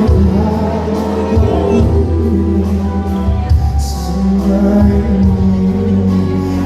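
Live pop music: a band with a steady bass line and held chords, with a male singer's voice.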